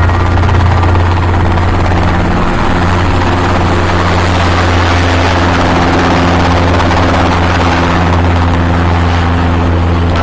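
Helicopter running steadily and loudly, a constant low drone of rotor and engine with a dense rushing noise over it.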